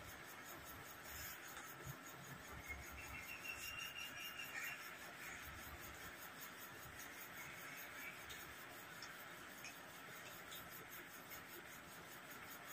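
Faint room hiss with quiet sounds of two people eating rice with their hands: soft mixing, chewing and light knocks against the plates. A thin high chirp sounds briefly about three seconds in.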